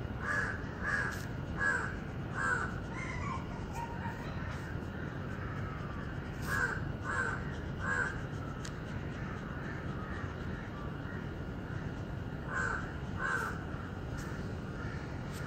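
Crow cawing in three runs of short harsh calls: four caws at the start, three more about six and a half seconds in, and two near the end, over a steady background hiss.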